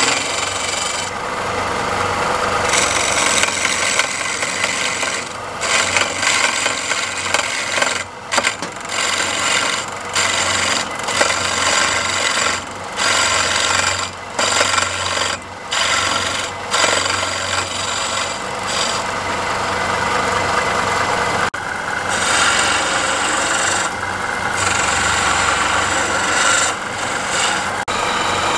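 Hand turning chisel cutting into a wood blank spinning on a lathe: a continuous scraping hiss that breaks off briefly many times as the tool is lifted and set again, over the lathe's steady low running hum.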